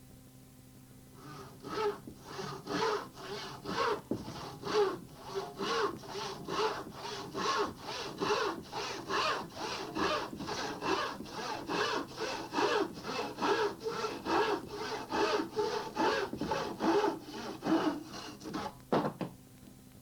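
Hand saw cutting through wood, steady back-and-forth strokes about two a second, starting about a second in and stopping near the end with a couple of final quick strokes.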